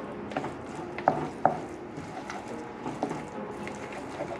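Wooden spoon stirring and scraping thick refried beans and melting shredded cheese in a skillet, with irregular sharp knocks of the spoon against the pan over a faint sizzle.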